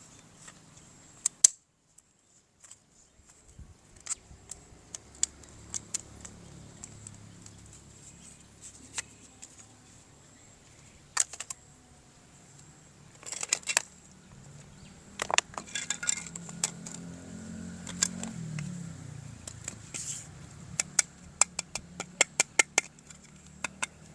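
Hard plastic toy pieces handled and unpacked: scattered sharp clicks, taps and light rattles, with a loud knock about a second and a half in and a quick run of clicks near the end.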